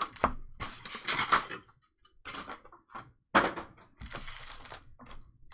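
Trading cards and foil pack wrappers being handled: a run of sharp clicks, taps and short rustles, with a few brief pauses.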